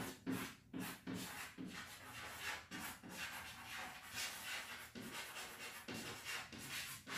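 Chalk scratching and tapping on a blackboard as words are written: an uneven run of short strokes.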